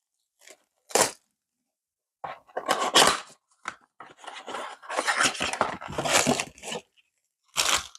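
Packaging of a trading-card blaster box being handled and torn open: cardboard and plastic wrap rustling and crinkling in short, irregular bursts, a brief one about a second in and longer stretches through the middle.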